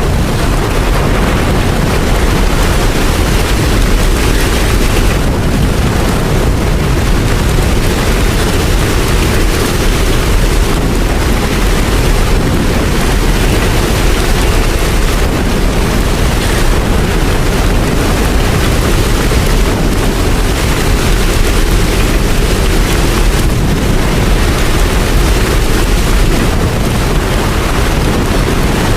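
Loud, steady heavy rain with a deep low rumble underneath, even throughout with no separate strikes or chimes.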